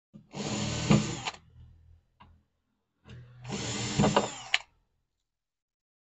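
Cordless drill-driver running twice, each time for about a second, turning screws in the metal mounting plate of a washing machine's transmission. The second run ends with a sharp click.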